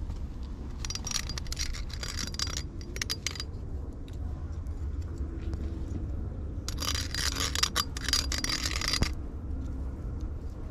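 A metal back scratcher on a pole scrapes in scratchy, faintly ringing bursts as a cat paws and grabs at it: a long burst about a second in, a short one near three seconds, and another long one around seven seconds. A low steady rumble runs underneath.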